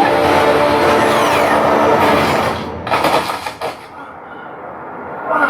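Film chase sound effects: a loud, dense rush of vehicle engine noise with falling pitch glides, which drops away about two and a half seconds in to a few sharp hits and then a quieter rumble that swells again near the end.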